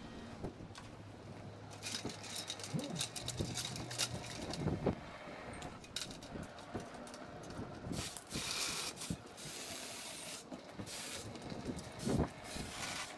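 Irregular knocks, clanks and rustles of a person walking up to a metal ladder and climbing it, with a faint low hum in the first few seconds.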